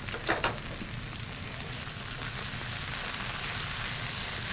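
Sliced mushrooms frying in oil in a sauté pan, a steady sizzle as they begin to brown.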